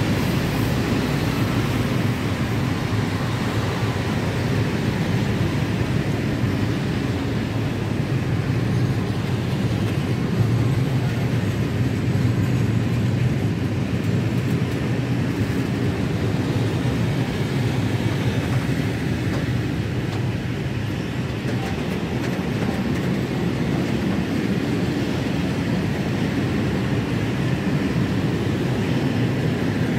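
Long freight train of empty wagons rolling past on the rails, a steady, continuous noise of the wheels and wagons.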